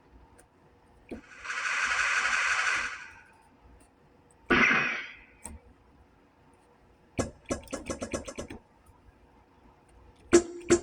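Preset sound effects played one after another on an electronic keyboard: a hissing noise burst lasting about two seconds, a sharp hit that fades over about a second, then a fast run of clicks and, near the end, a few more sharp clicks.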